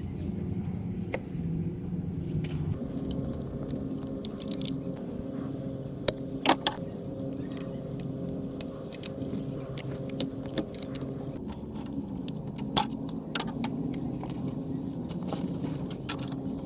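Plastic pipe fittings and a hose barb being handled and snapped onto a small 12 V fountain pump, giving a few sharp clicks and light rattles, the loudest about six seconds in. A steady low hum runs underneath.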